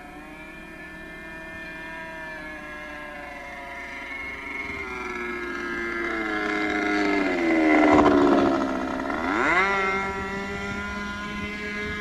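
Model-aircraft glow engine (a YS 45 in a pusher RC F-16) whining in flight, growing louder as the plane makes a low pass. Its pitch drops as it goes by, loudest about eight seconds in, then climbs quickly again about a second and a half later.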